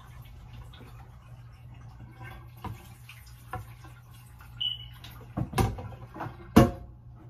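Sliced squash being rinsed in a pan at a stainless-steel kitchen sink: water splashing and draining as the pan is tipped, with light knocks of the pan and squash. Near the end there are two louder clunks of the pan against the sink, about a second apart.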